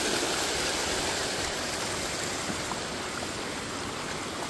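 Small stream of runoff water running steadily across and beside a footpath, a continuous rushing that fades a little toward the end.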